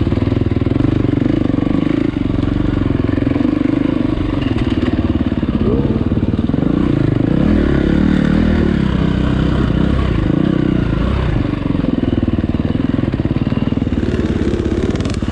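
Motorcycle engine running under load as it is ridden, its pitch rising and falling continually with the throttle.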